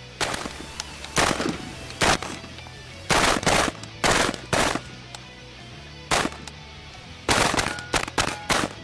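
Handgun shots fired in a training drill: about a dozen sharp reports in irregular singles and quick pairs, over a steady low hum.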